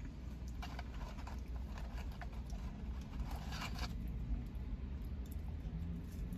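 Brief spells of rustling and crinkling from paper fast-food packaging as a woman handles and eats her food, about a second in and again around three seconds in, over a steady low rumble inside the car.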